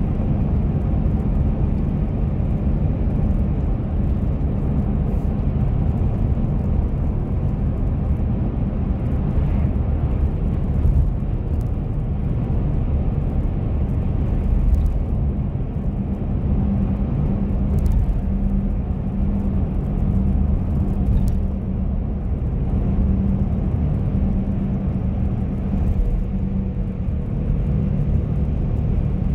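Steady low rumble of a car driving at road speed, heard from inside the cabin: engine and tyre noise on the tarmac.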